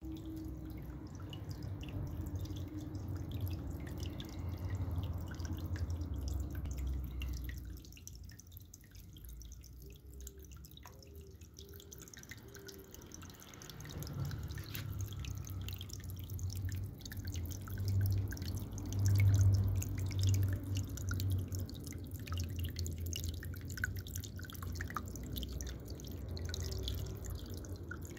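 Small decorative cascade fountain: water trickling and dripping over its rock-look tiers into the basin, over a low rumble that eases off for a few seconds partway through.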